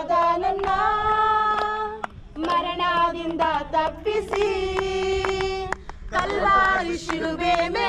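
Group of women and children singing a religious song together, with hands clapping along.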